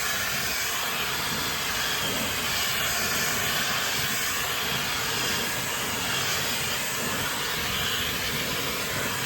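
High-speed hair dryer (160,000 RPM motor) running with a steady rushing hiss of air.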